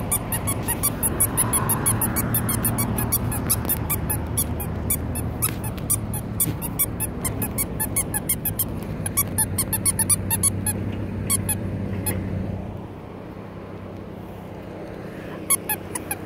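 A steady low engine hum with many short, high-pitched squeaks over it, several a second and irregular. The hum drops away near the end.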